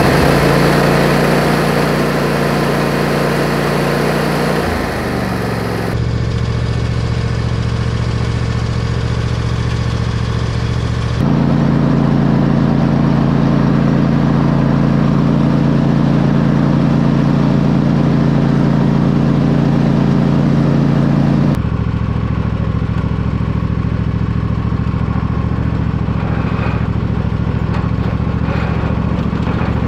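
Briggs & Stratton 23 hp V-twin engine of a riding lawn mower running steadily just after starting, then driving and mowing through grass with the deck. The engine tone changes abruptly three times, about 6, 11 and 21 seconds in.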